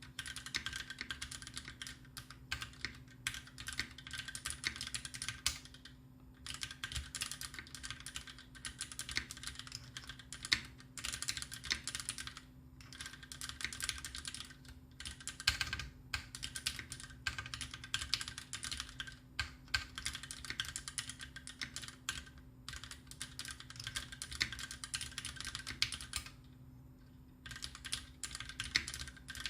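Typing on a custom Taichi TKL mechanical keyboard with lubed Greetech Black linear switches, screw-in stabilizers and GMK cherry-profile keycaps: fast runs of key clacks broken by a few short pauses.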